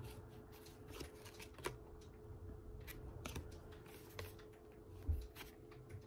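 Baseball trading cards handled and flipped through one by one, with light card-on-card clicks and slides and a soft thump about five seconds in.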